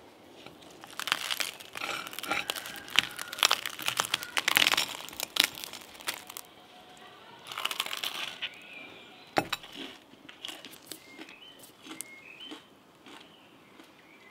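Crisp crackling and crunching in dense irregular clusters, strongest from about a second in to about six seconds and again briefly around eight seconds, with birds chirping faintly in the background.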